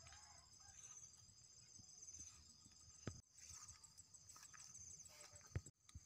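Faint open-country ambience: insects chirring in a steady high pulsing trill, over soft rustling and a few low thumps of footsteps through grass. The sound drops out briefly twice.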